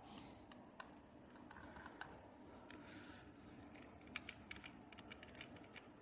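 Faint, irregular clicking of computer keys and mouse buttons over a low hiss.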